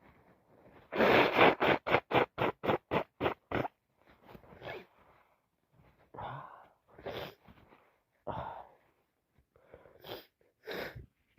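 A girl with a heavy cold sneezing and sniffing through a congested nose: about a second in, a fast run of about ten short bursts, some four a second, then a handful of single bursts spaced a second or so apart.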